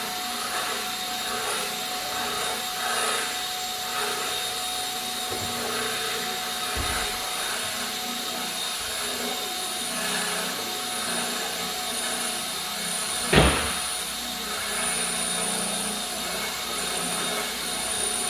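A machine running steadily, with a whine over rushing air, and one sharp knock about 13 seconds in.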